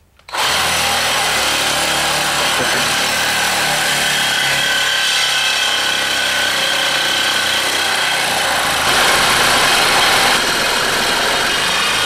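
Reciprocating saw (Sawzall) running and cutting through metal: a loud, steady sawing noise that starts a moment in and runs on unbroken, a little louder for about a second and a half near the end.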